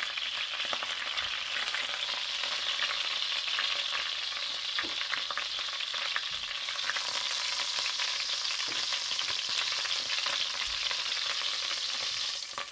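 Chicken thighs sizzling in hot oil in a stainless steel pot: a steady frying hiss with fine crackling and a few small knocks. The pieces have browned, and the sizzle drops slightly just before the end.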